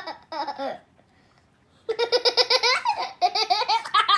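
A young girl laughing hard in a rapid run of repeated laughs that starts about two seconds in, after a brief quiet pause and a few short vocal sounds.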